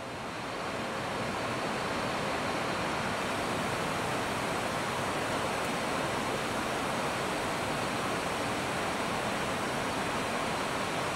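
Steady rushing noise on the flight deck of an Airbus A321 in flight, the airflow and air-conditioning hiss of the cockpit. It swells up over the first second or so, then holds even.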